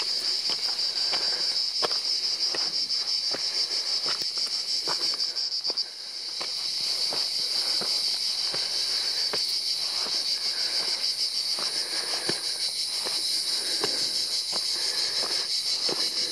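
Cicadas buzzing in a steady high drone that falls away briefly about six seconds in and builds back up, with a hiker's footsteps crunching on a loose, stony path.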